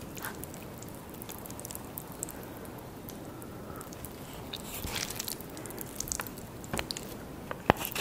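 Close-miked eating sounds: biting and chewing of cheesy spicy noodles, with many small mouth clicks that come thicker in the second half and one sharp click near the end.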